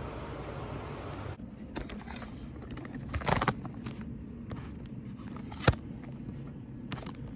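A steady low background noise from the shop cuts off about a second in. Then come handling noises as a camera is reached for and set in place: scattered clicks and rustles, a short cluster of knocks, and one sharp knock past the middle.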